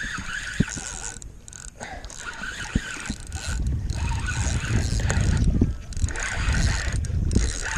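Fishing reel whirring and clicking in stretches with short breaks as line is worked in against a hooked fish, with wind rumbling on the microphone, strongest in the second half.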